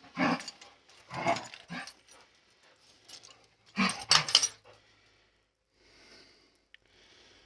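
A dog vocalizing in several short bursts, the loudest about four seconds in.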